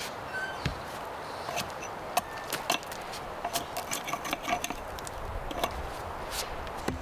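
Irregular sharp wooden knocks and clicks from wood being handled and struck on a wooden chopping block, the strongest about two seconds in and again near the end.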